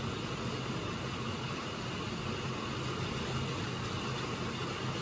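Steady background hum and hiss with no distinct knocks or clicks.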